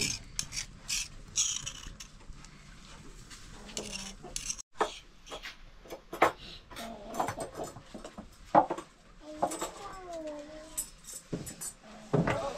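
Irregular clicks and knocks of small objects being handled, with a short falling call about ten seconds in.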